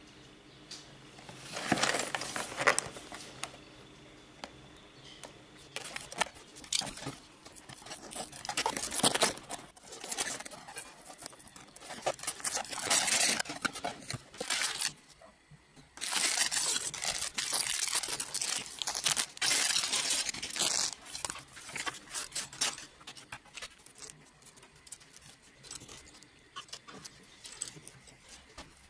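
Cardboard packaging being opened and plastic parts bags tearing and crinkling in several long bouts, then small plastic Lego pieces clicking and rattling as they are tipped out onto a table near the end.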